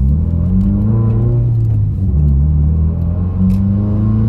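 Subaru WRX's turbocharged flat-four engine accelerating, its pitch climbing, falling at a gear change about two seconds in, then climbing again.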